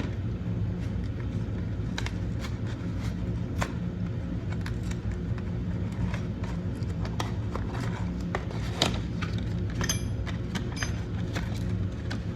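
Scattered light clicks and clinks of oil-change parts and tools being handled, a few with a short metallic ring, over a steady low hum.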